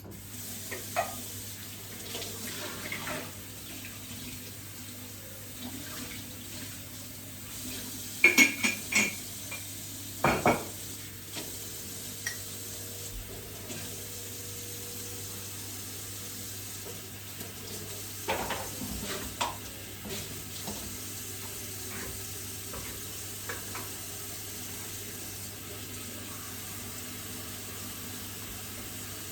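Kitchen dishes and utensils clinking and clattering as they are handled, in scattered bursts with the sharpest clatters about a third of the way in and again past the middle, over a steady low hum.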